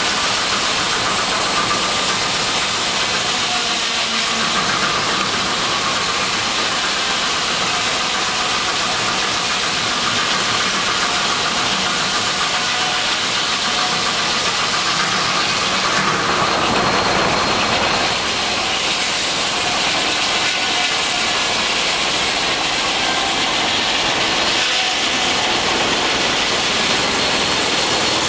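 1916 J. I. Case 80 hp steam traction engine driving an antique sawmill: a steady, loud mechanical running noise thick with hiss, with a brief swell about two-thirds of the way through.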